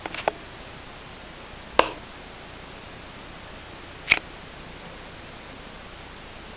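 Steady hiss of a small camcorder's microphone, with a few sharp handling clicks as the camera is moved: a quick cluster at the start, then two single clicks about two and four seconds in.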